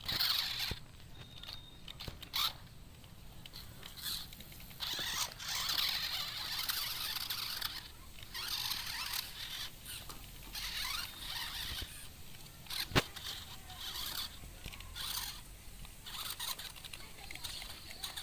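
Toy RC monster truck's small electric motors and gears whirring in repeated short bursts of throttle as it drives through soft dirt, with one sharp click partway through.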